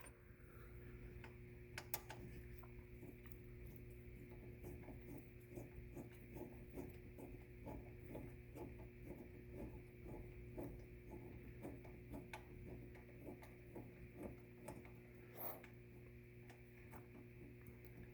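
Faint small clicks and light rubbing, about one or two a second, as a Torx T40 brake caliper bolt on an ATV is unscrewed by hand, over a steady low hum.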